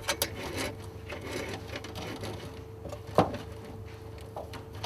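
Hands working cables and their braided sleeving: rustling, small clicks and scrapes, with one sharper knock about three seconds in.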